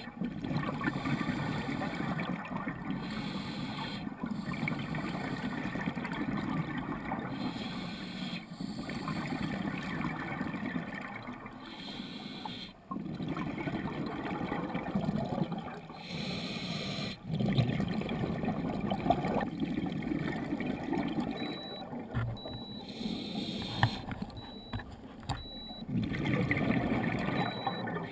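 Scuba diver's breathing underwater: the regulator's gurgling exhaust bubbles, muffled through the camera's waterproof housing. It comes in a slow cycle, dropping away briefly every few seconds.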